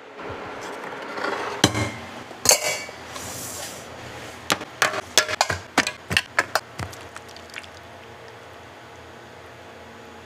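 Two sharp knocks, then a quick run of about ten clinks and taps as diced fruit cocktail is dropped into thin aluminium llanera molds.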